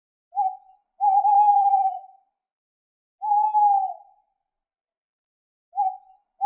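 Male tawny owl hooting: a short hoot, then a long wavering hoot of about a second. Two seconds later comes a long hoot that falls in pitch, and near the end another short hoot leads straight into a wavering one.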